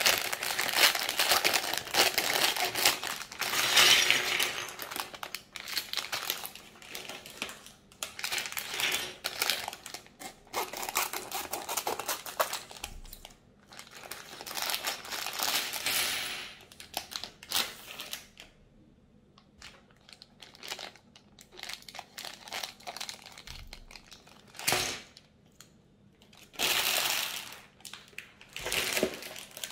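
Thin clear plastic LEGO parts bags crinkling as they are handled and torn open, with loose plastic pieces tipped out and clicking onto a wooden table a few times.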